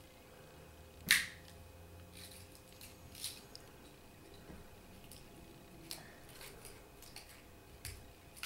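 A vanilla fortune cookie being cracked open by hand: one sharp snap about a second in, then a few faint crackles as it is broken further and the paper fortune is worked out.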